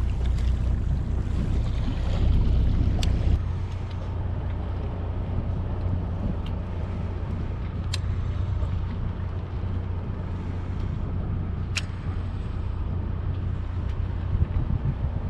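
Steady low hum of a fishing boat's engine under a haze of wind and water noise, the deepest part of the hum easing a little about three seconds in. A few sharp ticks sound about three, eight and twelve seconds in.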